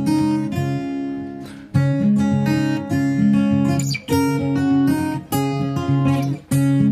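Background music: strummed acoustic guitar playing chords in short phrases.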